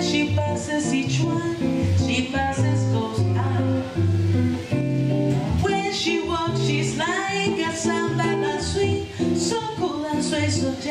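Live music: a woman singing into a microphone over a plucked acoustic guitar.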